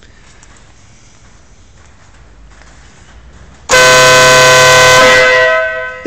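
Pro Pad Mini Beast II air horn fitted to a Harley-Davidson motorcycle, sounded once in a single loud, steady blast of about two seconds that starts suddenly about four seconds in and tails off near the end.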